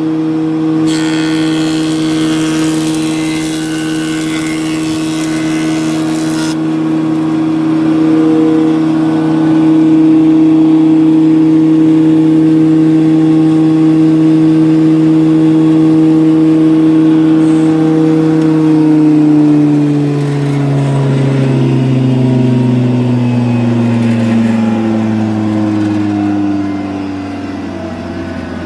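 SF-6 wood jointer's motor and two-knife cutterhead running at full speed with a steady hum. A loud hiss starts about a second in and cuts off sharply some five seconds later. At about 19 s the machine is switched off, and its pitch falls steadily as the cutterhead coasts down.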